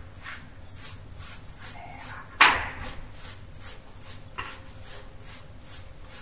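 Soapy, lathered hands rubbing together in a surgical hand scrub, a steady series of soft swishing strokes about two to three a second. A single louder, brief sound stands out about two and a half seconds in.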